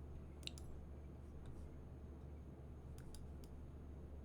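Faint clicks of someone working a computer: a quick pair about half a second in, then three more around three seconds in. Under them runs a steady low electrical hum.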